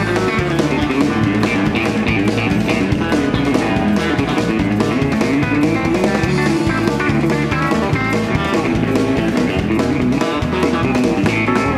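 Live country band playing an instrumental break: an electric guitar picks a lead line over bass guitar and drum kit, with no singing.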